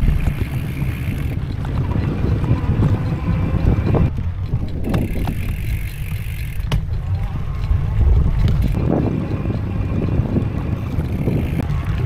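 Wind buffeting the microphone over the rumble of an e-bike's tyres rolling along a dirt trail. A faint high whine comes and goes twice.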